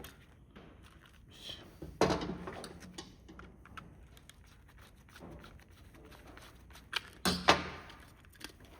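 Plastic remote-control housing being pried apart, with a sharp crack about two seconds in and a quick group of loud snaps and knocks near the end as the case's clips let go.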